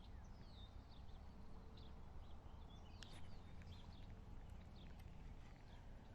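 Faint outdoor quiet: scattered short bird chirps over a low steady rumble, with a few faint clicks.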